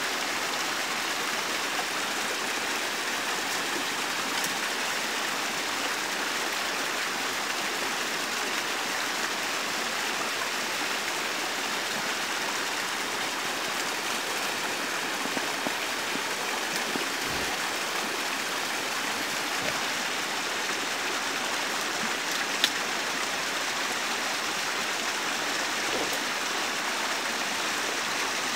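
Small shallow stream running steadily, an even rush of water, with an occasional faint click.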